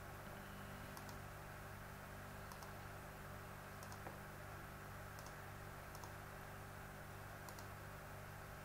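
Computer mouse button clicking, a few separate clicks, several as quick press-and-release pairs, over a steady low hum.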